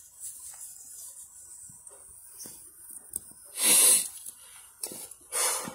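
A man sniffing twice, loud and noisy through the nose, the first about three and a half seconds in and the second a second and a half later: the sniffles of someone crying.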